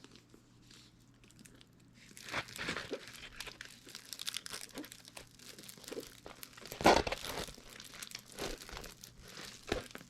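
Packaging crinkling and rustling as a diamond painting canvas is unwrapped and handled, starting about two seconds in, with one louder crackle a little past the middle.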